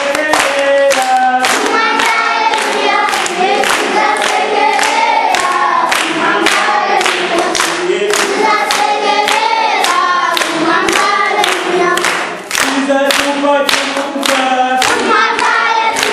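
A group of children singing together in chorus, with steady handclapping on the beat, about two claps a second.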